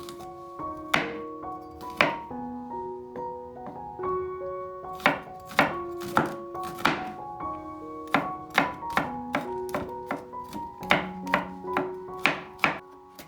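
Knife chopping on a cutting board: sharp, irregular strikes, a few spaced out at first, then coming faster in the second half. Background music with sustained piano-like notes plays underneath.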